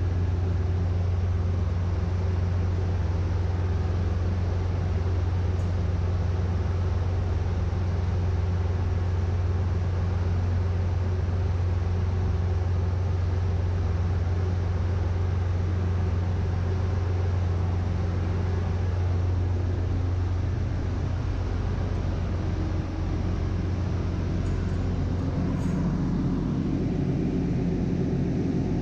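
Steady drone of running ship's engine-room machinery, a deep constant hum heard from inside the stopped main engine's crankcase. About twenty seconds in the tone shifts: the deepest hum eases and a higher hum comes up.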